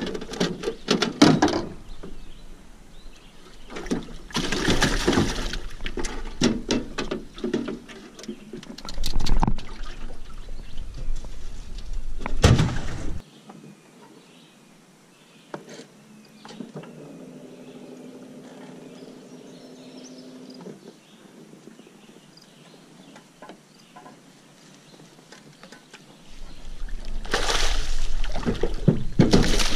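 Knocks and clatter of gear being handled in a metal fishing boat. Near the end comes loud splashing as a fish hooked on a jug line thrashes at the surface.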